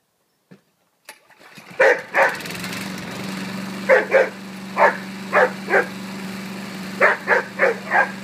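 A Rhodesian Ridgeback barking repeatedly at a running Trojan petrol lawnmower, about eleven loud barks in quick clusters of two to four. The mower's engine starts up about a second in and then runs steadily under the barking.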